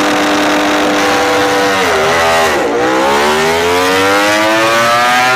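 Sound effect of a high-revving racing engine: it holds a steady high pitch, dips briefly about two seconds in, then climbs steadily as it accelerates, and cuts off abruptly at the end.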